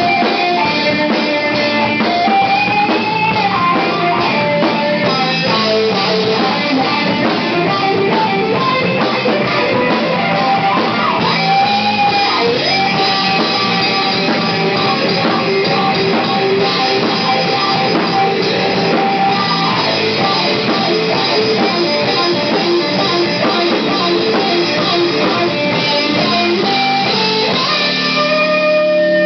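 A stoner-rock band playing live without vocals: electric guitars with bending melodic lines over bass and drum kit.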